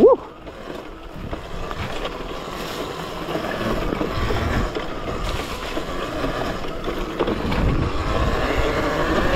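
Modified Talaria Sting electric dirt bike ridden off-road over rough ground. Wind buffets the microphone over the bike's rumble and rattle across the terrain, with a faint high whine from the electric drive, getting louder toward the end.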